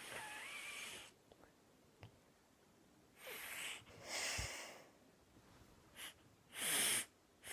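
A person sniffing deeply through the nose at a nasal balm inhaler stick, about five breaths in a row, the loudest near the end.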